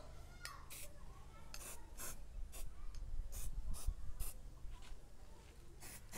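Aerosol can of rat-repellent spray hissing in a string of short bursts, about ten in six seconds, over a steady low rumble.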